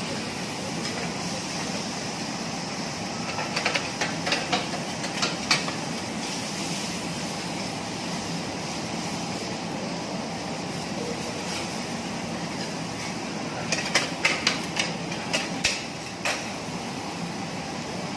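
Metal spatulas clacking against a teppanyaki griddle in two quick flurries of strikes, over a steady rushing hiss.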